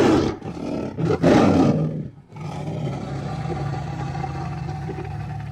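Angry tiger roaring: a loud roar dying away at the start, a second short roar about a second in, then a long, steady low growl.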